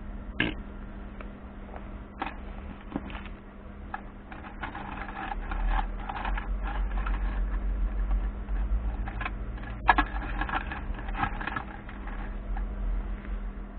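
Irregular clicks, knocks and clattering, as of hard plastic and metal parts being handled, over a steady low hum. Sharp single clicks come about half a second in, a little after two seconds and near ten seconds, with denser clattering in between.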